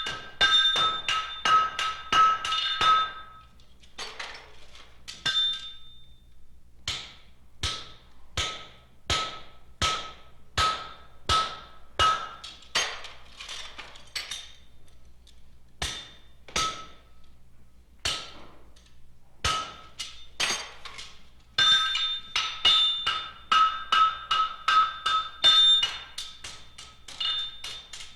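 Blacksmith's hammer striking a horseshoe on an anvil, each blow ringing out. It opens with a quick run of ringing blows, then slows to single, duller blows less than a second apart through the middle, and goes back to fast, ringing hammering near the end.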